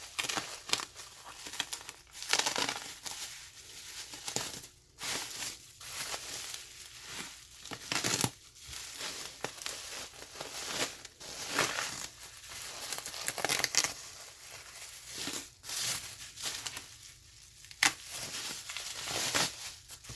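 Packing material crinkling and tearing in irregular bursts as wrapped parts are unpacked by hand, with a few sharp rustles standing out.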